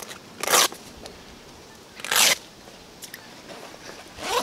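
Three short noisy swishes about two seconds apart, with faint ticks between them: water sloshing and the mat's fabric being handled as a padded unhooking mat is moved in shallow water.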